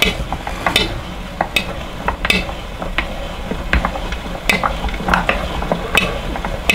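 Victorio hand-cranked food strainer being turned as it forces hot cooked nannyberries through its screen: a wet squishing and scraping churn with a sharp click about every three quarters of a second.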